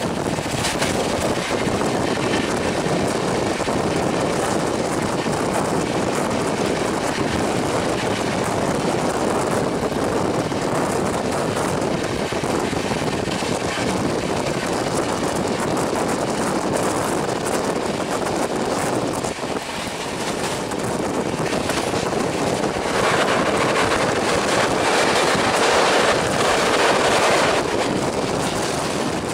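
Express passenger train running at high speed, heard from an open coach door: a steady rush of wind with the rumble of wheels on rail. It grows louder for a few seconds near the end.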